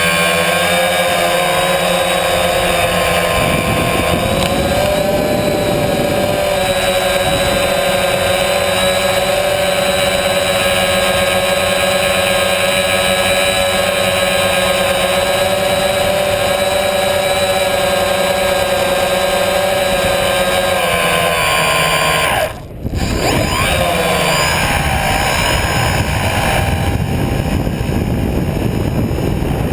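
Tricopter's three electric motors and propellers whining steadily in flight, heard from the camera mounted on the frame. The sound drops out for a moment about three quarters of the way through, then comes back with its pitch sliding as the throttle changes.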